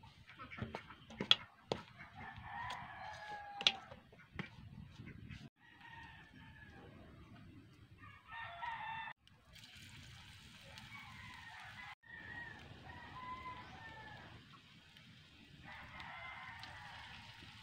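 Chickens calling, with a rooster crowing several times in separate one- to two-second calls. A few sharp clicks come in the first few seconds.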